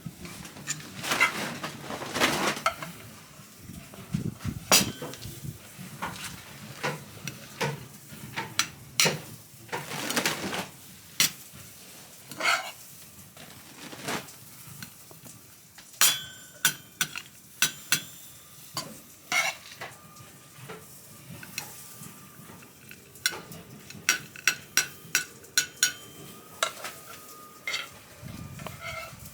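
Metal cookware and utensils clinking and knocking against pans and dishes, many separate strikes, some ringing on briefly in the second half, over a frying sizzle.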